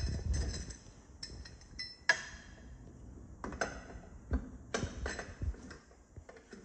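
Metal clinks and clicks from a four-way wheel brace turning the wheel bolts off a car's front wheel. A sharp click about two seconds in is the loudest, followed by a run of smaller clicks a little later.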